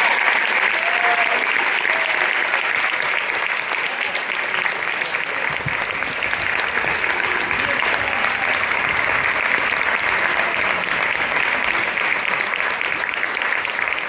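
Audience applauding: a dense, steady clapping of many hands that keeps up throughout.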